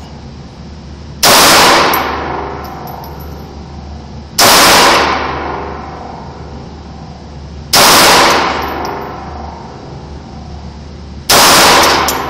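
Four shots from a .380 pistol, evenly spaced about three seconds apart. Each shot is loud enough to clip the recording and rings off in a long echo of the indoor range.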